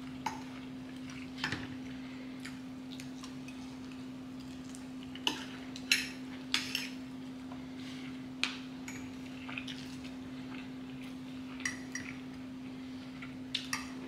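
Cutlery clinking and scraping against a plate in scattered, irregular clicks while eating, the loudest about six seconds in, over a steady low hum.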